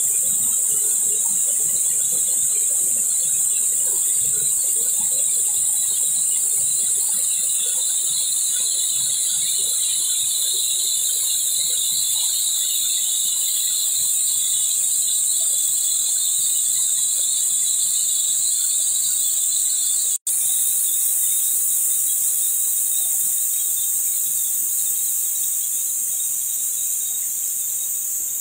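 A loud, steady, high-pitched chorus of insects droning without a break, with a lower buzzing layer underneath. After a brief cut in the sound about two-thirds of the way through, the lower layer is gone and only the high drone continues.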